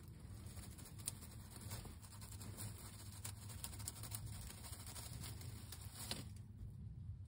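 Pine-straw nest bedding rustling and crackling, with small clicks, as a broody Royal Palm turkey hen reaches out and rolls chicken eggs into the nest with her beak. The sharpest crackle comes about six seconds in, over a low steady hum.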